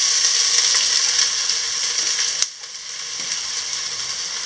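Chopped onion dropped into smoking-hot oil in a steel pot, sizzling loudly. About halfway through there is a click and the sizzle drops sharply, then carries on quieter.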